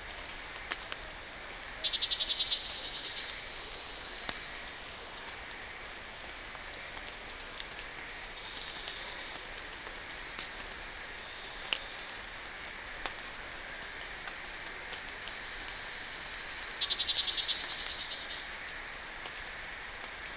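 Insects chirping: a steady run of short, high chirps, with a fast pulsing trill that comes in about two seconds in and again near the end, and fainter trills between.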